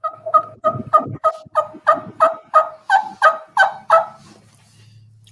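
Hen turkey yelps made on a turkey call: a steady run of about a dozen soft yelps, roughly three a second, each note breaking from a higher to a lower pitch. The run stops about four seconds in. It is the soft opening yelping used to let a gobbler still on the roost know a hen is near.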